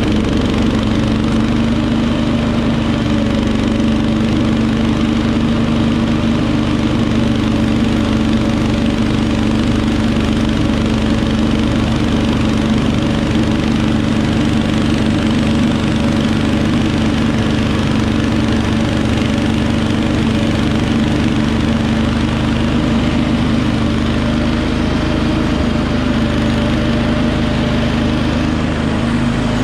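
Wheel Horse 310-8 garden tractor engine running steadily while driving its front snowblower through heavy, wet snow, with a constant hum.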